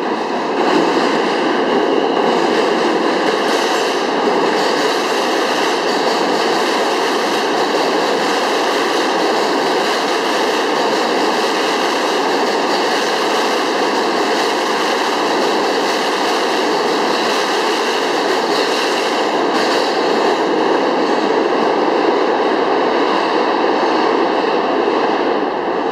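Alstom R160 subway cars running past on departure: a loud, steady rolling noise with several steady tones over it.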